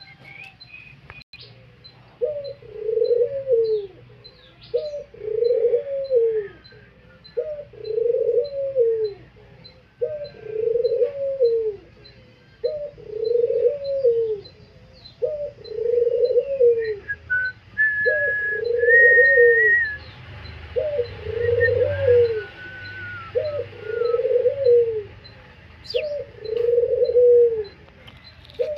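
A dove cooing: one low, arched coo about every two and a half seconds, repeated about a dozen times, starting about two seconds in. Thin, higher whistles from a small bird come in faintly in between.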